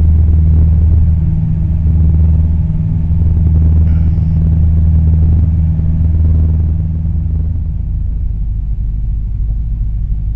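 Cessna 172M's four-cylinder Lycoming engine and propeller droning steadily at high power, heard inside the cabin during a takeoff. About seven or eight seconds in, the drone turns lower and quieter as power comes back.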